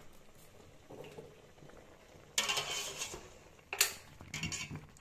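Wire spider strainer lifting boiled penne out of a stainless steel pot and tipping it into a plastic colander. There is a wet, splashy rush of pasta and water about halfway through, a sharp metal knock on the pot a second later, then a second, shorter rush.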